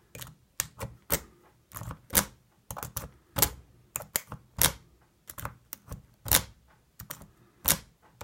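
Lock pick being zipped out across the wafers of a car lock under tension, making sharp metal clicks one or two a second, some in quick clusters. The zipping attempts do not open the lock.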